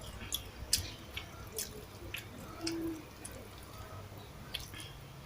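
Close-up mouth sounds of eating soft, wet food (rice with sardines): chewing with about eight sharp, wet clicks and lip smacks scattered through.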